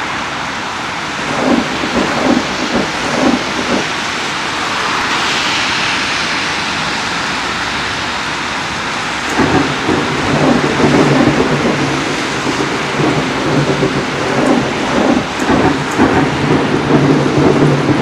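Steady rain with thunder. There are a few low rumbles in the first seconds, then about halfway through a deeper, louder rumble sets in and keeps going.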